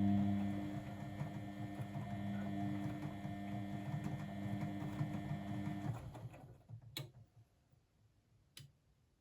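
Blomberg WAF 7442 SL washing machine humming steadily, winding down and stopping about six seconds in. Two sharp clicks follow about a second and a half apart.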